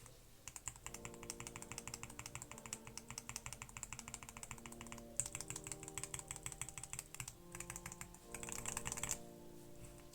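Fast typing on a mechanical keyboard fitted with roller linear switches (ball-bearing stems): a rapid run of key clacks, breaking off briefly about five seconds in and ending in a denser flurry near the end.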